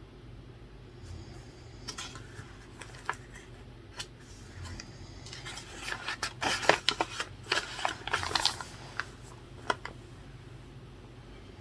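Short spells of scratching and rubbing at a study desk, with scattered light clicks, the busiest stretch in the middle. Underneath, faint low snoring recurs every few seconds.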